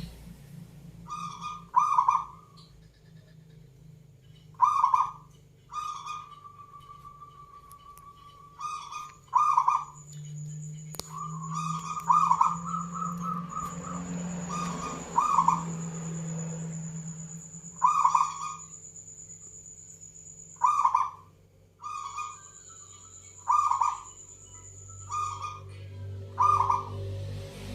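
Zebra dove (perkutut) cooing: short, loud coo phrases repeated every couple of seconds, some drawn out into a held note. A thin, high, steady tone sounds alongside through much of the middle and later part.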